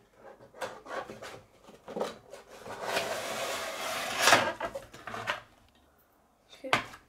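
Cardboard packaging rustling and scraping as a toy-car display tray slides out of its windowed cardboard box, with a steady rubbing stretch in the middle and light clicks around it. A single sharp knock near the end.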